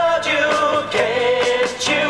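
Rock song: a male lead voice singing long, wavering notes over electric guitar and drums.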